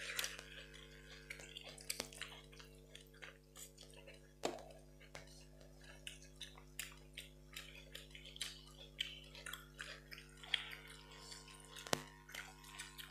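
People eating rice by hand from steel plates: chewing and mouth sounds, fingers working the rice, and many small clicks of food and hands on metal. A sharper knock comes about four and a half seconds in and another near the end, over a steady low hum.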